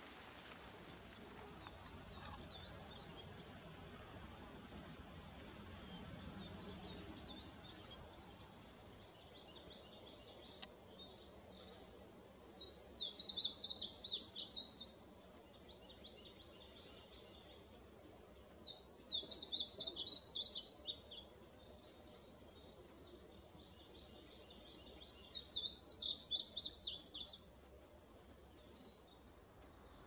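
Male painted bunting singing: three loud, high warbling song phrases of about two seconds each, roughly six seconds apart, after two fainter phrases in the first several seconds.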